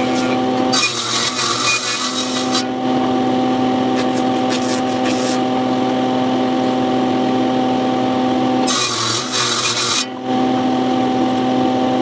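Electric power tool motor running with a steady hum, working wood, with stretches of rasping cutting noise where the hum briefly drops away.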